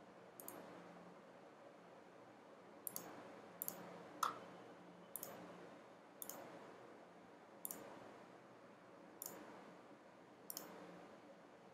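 Faint, sharp clicks of a computer pointing device: about nine clicks at irregular intervals, some in quick pairs, over a low background hum.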